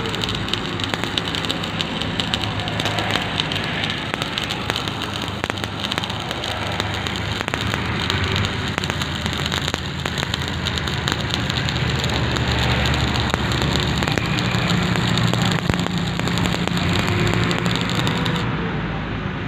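Stick (shielded metal arc) welding on steel angle iron: a steady, dense crackle and sizzle of the arc as a bead is run along the joint without a break. A steady low hum runs underneath.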